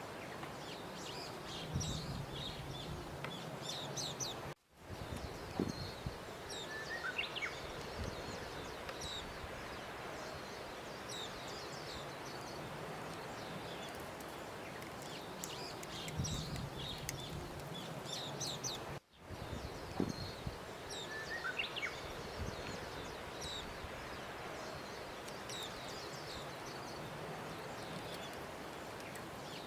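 Ambient nature recording of small birds chirping over a steady outdoor noise bed, looping about every 14 seconds with a brief dropout at each loop point.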